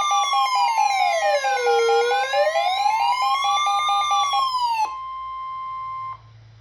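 Electronic emergency alert siren wailing slowly up and down, about one rise and fall every four seconds, layered with rapid steady beeping tones. The siren cuts off about five seconds in, leaving one steady single tone that holds for about a second and then stops.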